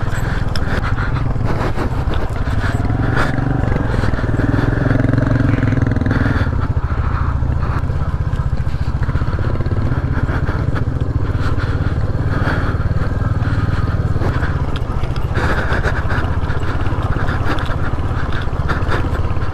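Royal Enfield Hunter 350's single-cylinder engine running steadily while the bike is ridden over a rough, stony dirt road, with many small knocks and rattles from the bike going over the loose stones.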